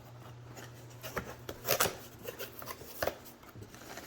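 Cardboard box and packaging being handled and opened: a few scattered knocks and scrapes, the loudest pair about a second and a half in, with rubbing in between.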